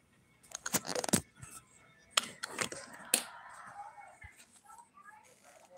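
Handling noise as a phone is moved: sharp clicks and knocks with rustling, in two clusters, about a second in and again around two to three seconds in.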